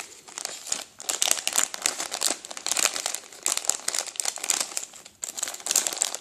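Thin clear plastic bag crinkling as hands open it and pull a small servo out, an irregular, high-pitched rustle with a short lull about five seconds in.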